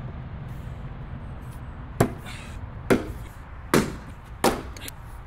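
A Helko Vario 2000 splitting axe with a 2300 g head strikes a large log round four times in quick succession, starting about two seconds in, a little under a second between blows. Each blow is a sharp chop into the wood.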